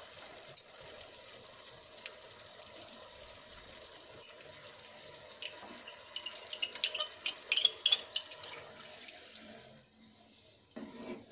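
Vegetables and sauce sizzling in hot oil in a pan with a steady hiss. Then a cup of milky liquid is poured in and spits and crackles sharply for a couple of seconds. The sizzle dies down shortly before the end as the liquid cools the pan.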